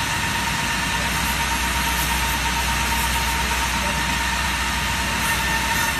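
CNC abrasive-belt polishing machine for adjustable wrenches running, its sanding belts and drive motors making a steady rushing noise over a low hum, with a constant whine.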